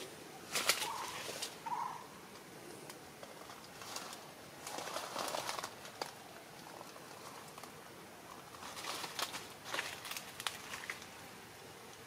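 Parakeets giving two short, soft calls in the first two seconds, with brief bursts of rustling noise around five and ten seconds in.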